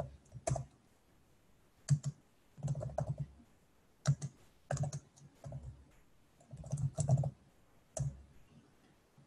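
Typing on a computer keyboard: several short runs of keystroke clicks with brief pauses between them.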